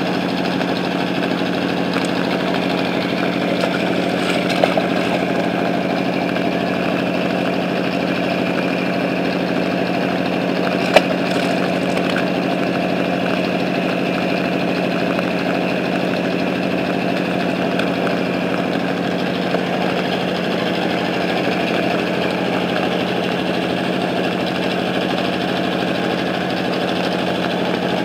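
An engine running steadily at idle, an even, unchanging hum, with one sharp click about eleven seconds in.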